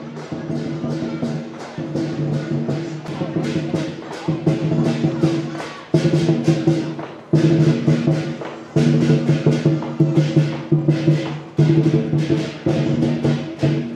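Chinese lion dance percussion: drum, gong and cymbals beating fast and evenly, with a ringing tone underneath and a few short pauses.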